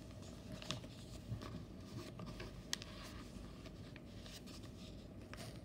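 Faint rustling of a paper workbook being moved and laid flat on a desk, with a few small clicks and taps, the sharpest about two-thirds of a second past the two-and-a-half-second mark.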